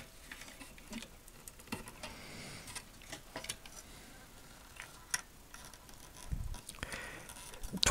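Faint, irregular small clicks and taps of fingers handling the electrolytic capacitors and ribbon cable on the scale's circuit board.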